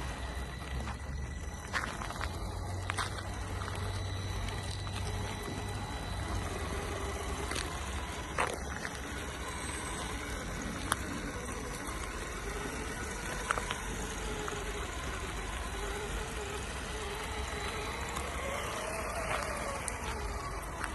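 Electric motor of a 1/10-scale RC crawler truck whining as it drives, its pitch rising and falling with the throttle, with a few sharp clicks.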